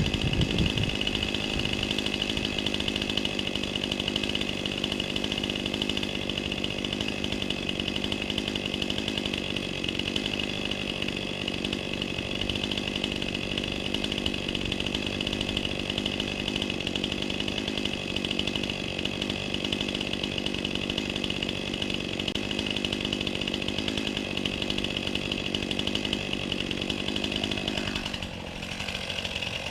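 Two-stroke chainsaw engine running at a steady, unchanging pitch, dropping off about two seconds before the end.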